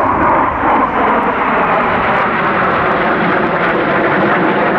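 Loud, steady jet engine noise from an arriving RAF Panavia Tornado GR4 and its two RB199 turbofan engines.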